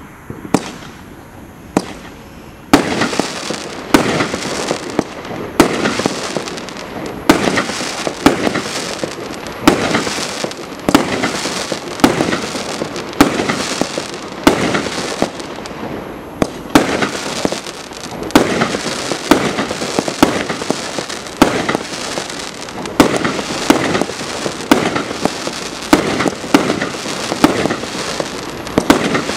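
A 1-inch, 100-shot fireworks cake firing. After a quieter opening with a couple of faint clicks, the shots start about three seconds in and go off in rapid succession. Each loud bang comes about once a second, with a dense rattle of smaller pops between them.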